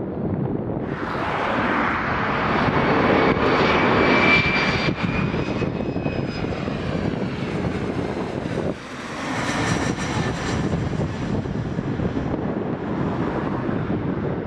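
Bombardier CRJ regional jet's twin rear-mounted turbofans as it passes low on landing approach: a steady roar with a high engine whine over it. The sound builds about a second in and is loudest around four seconds in.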